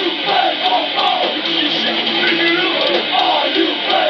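Hardcore punk band playing live: loud strummed electric guitar with a voice shouting or singing over it.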